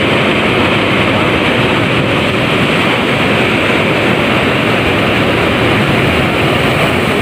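Sea surf breaking and washing over boulders at the shore: a loud, steady rush of water with no single crash standing out.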